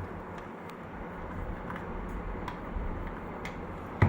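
Small electric motor of an automatic brush-type soldering tip cleaner running steadily, spinning its two brushes against an inserted soldering iron tip to scrub off oxide and solder. A single sharp knock near the end.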